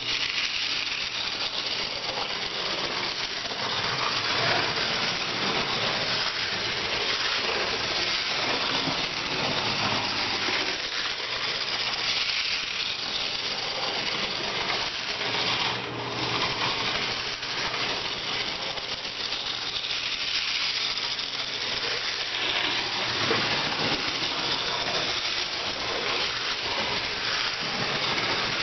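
A small mechanism running steadily with a continuous fast rattle and hiss.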